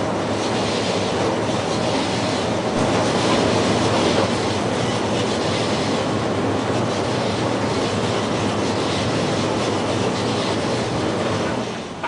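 English Electric 4602 tumble dryer running, its drum turning and fan blowing, with a steady low hum from the motor. The sound dies away just before the end as the machine stops.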